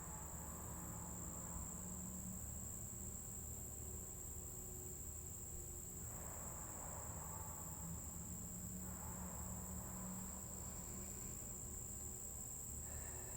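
Crickets chirping as a steady, unbroken high-pitched trill.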